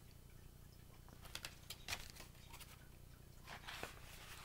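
Faint rustling and light taps of a hardcover picture book being handled and its page turned, in two short clusters, about a second in and again near the end.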